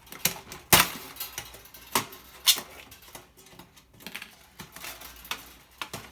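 Irregular clicks and metallic clinks from hand tools working on a toaster oven's sheet-metal parts, with sharper knocks a little under a second in and at about two and two and a half seconds.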